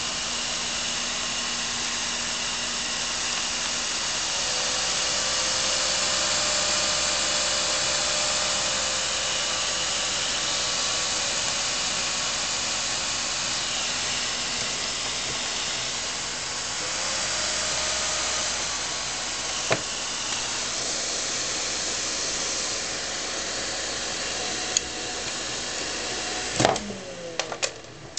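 A Thermaltake computer cooling fan running loud, a steady rushing whine with a few tones that shift slightly in pitch. Near the end there are a few clicks and the whine falls away as the fan winds down.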